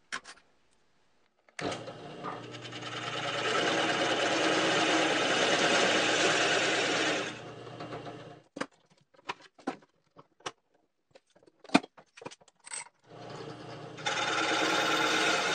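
Drill press running with an adjustable circle cutter boring a hole in plywood: the motor starts a couple of seconds in, the cut loads it up for about five seconds, then it eases off. A string of sharp clicks and knocks follows, and the drill press runs again near the end.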